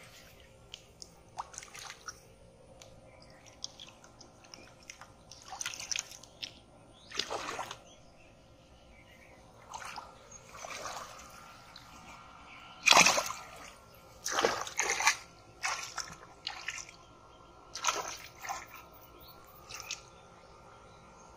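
Splashing and sloshing of shallow muddy water as hands grope through it to catch fish. The splashes come in irregular short bursts, the loudest a little past halfway.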